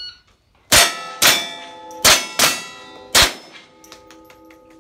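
A shot timer's start beep, then a Ruger 10/22 .22 LR rifle fired five times in about two and a half seconds. Each shot rings a steel target plate, and the steel keeps ringing after the last shot.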